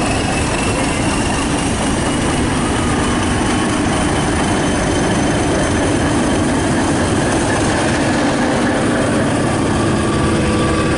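British Rail Class 31 diesel locomotive 31289 passing close by with its train, its English Electric V12 diesel engine running with a steady drone. Thin, high whining tones sit above the drone, along with the rumble of wheels on the rails as the wagons follow.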